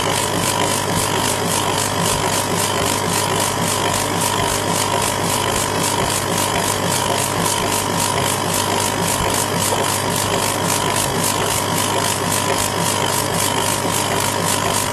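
Laser engraving machine running while it raster-engraves a rubber sheet: a steady machine hum with a high hiss that pulses evenly several times a second as the laser head sweeps back and forth.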